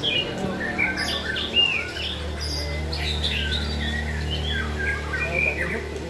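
Caged shamas singing, several birds at once: a busy run of short clear whistles and quick slurred glides overlapping one another, over a steady low hum.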